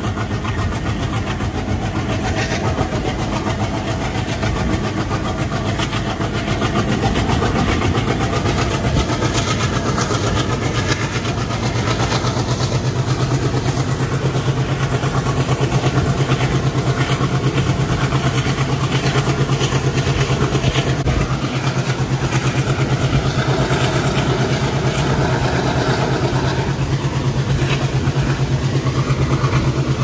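ALCo WDG3A diesel locomotive's 16-cylinder 251 engine chugging hard under load, with a rapid, even pulse, heard from the train behind it. It grows a little louder about eight seconds in.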